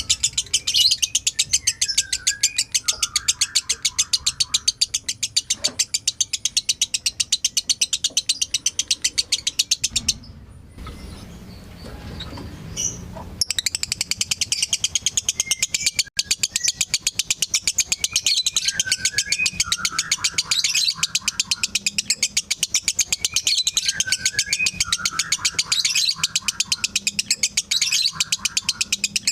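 Lovebird's long, rapid chattering song ("ngekek"): sharp high notes repeated about five a second, mixed with short sliding chirps. It breaks off for a few seconds near the middle, then starts again.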